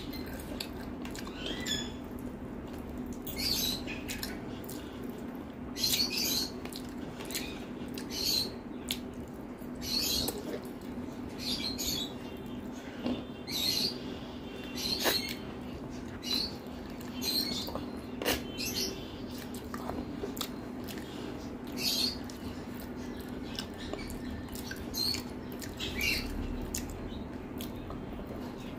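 Close-miked eating sounds: wet chewing and lip smacks while eating spicy chicken curry by hand, a short smack every second or two.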